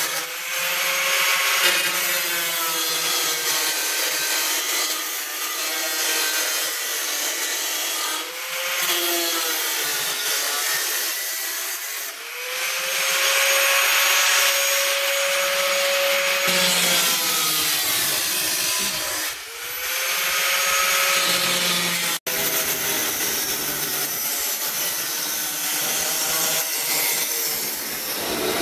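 Power tool cutting away the rusty sheet-steel rear wheel arch of a Mazda MX5, loud and harsh, its motor pitch sagging under load and picking up again several times. Briefly cuts out about 22 seconds in.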